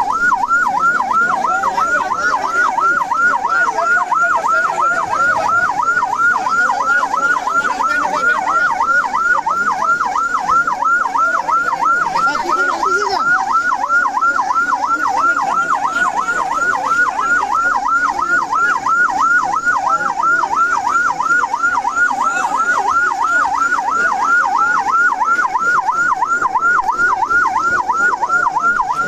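Electronic vehicle siren in a fast yelp, its pitch sweeping up and down about three to four times a second at an even rate.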